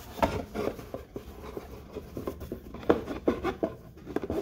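Handling noise from cotton-gloved hands turning over a Baume & Mercier watch presentation box: a scatter of soft rubs and light taps.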